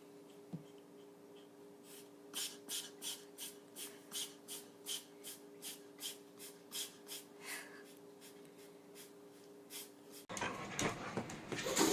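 A pet's quick, rhythmic breathing, about two to three short breaths a second, over a steady low electrical hum.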